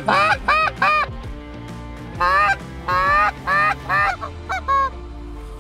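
Hand-held goose call blown in loud honks, about a dozen notes in two runs, each note arching up and back down in pitch. The calling imitates geese to draw a passing flock toward the decoys.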